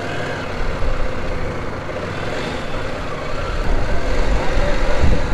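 Motorcycle running on the road while being ridden: a steady engine sound mixed with wind and road noise, growing louder in the second half.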